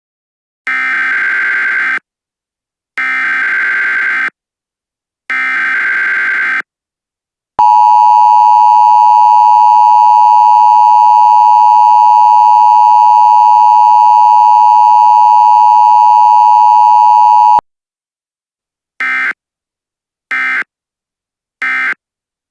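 Emergency Alert System tones: three SAME header data bursts of about a second each, then the steady two-tone attention signal held for about ten seconds and cut off abruptly. Three short end-of-message data bursts follow near the end.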